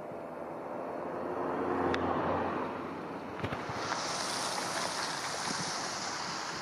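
Semi truck's diesel engine pulling away through a turn, a steady drone that swells about two seconds in, then a steady high hiss of tyres on wet pavement from about four seconds in.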